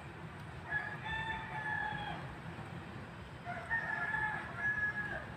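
A rooster crowing twice, each crow a long held call of about a second and a half, the first about a second in and the second about three and a half seconds in.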